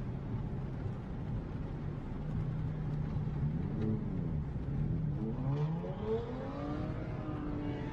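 Ford Mustang engine revving as the car accelerates, its pitch sweeping up and down several times and climbing higher near the end, over a steady low drone.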